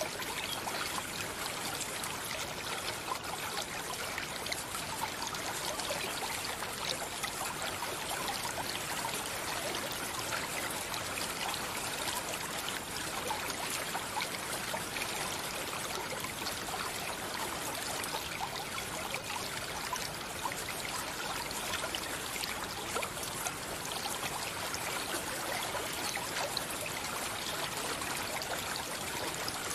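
Running water of a stream, a steady even rush of flowing water.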